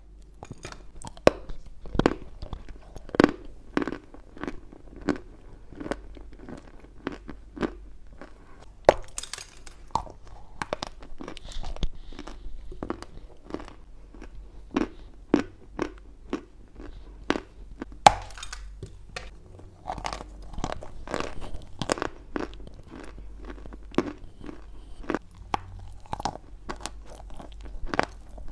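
Crunchy biting and chewing of chunks of chalk right at a clip-on microphone, a sharp crunch every second or so with the loudest bites near the start and about two-thirds of the way through.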